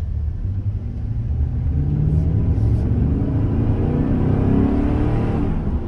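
GMC Sierra 1500's 4.8-litre Vortec V8 accelerating under throttle, heard from inside the cab. The engine note climbs steadily in pitch and loudness from about a second and a half in, pulling without a downshift, then eases off near the end.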